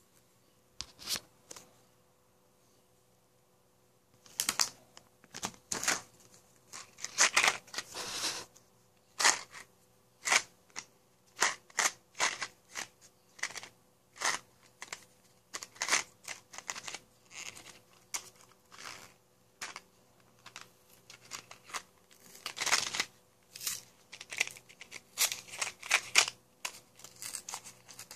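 Packaging being handled, crinkled and torn open by hand: a long run of sharp, irregular rips and crackles starting about four seconds in.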